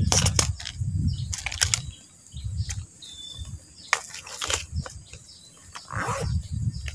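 Outdoor riverbank ambience: wind rumbling on the microphone in gusts, a few sharp clicks, and a brief high bird chirp about three seconds in.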